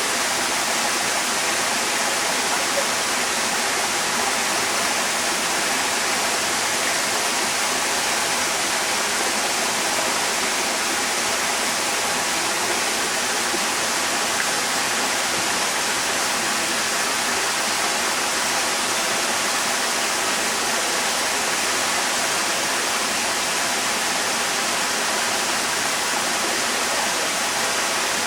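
Waterfall pouring, a steady, even rush of falling water that does not change.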